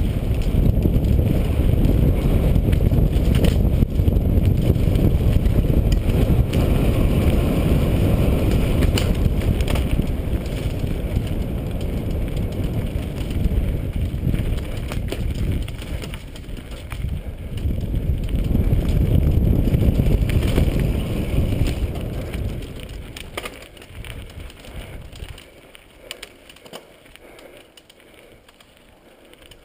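Wind buffeting the microphone of a helmet camera on a fast mountain-bike descent, with knocks and rattles from the Santa Cruz Nomad over rough dirt. The rushing noise drops away sharply a few seconds before the end, leaving quieter tyre and trail sounds.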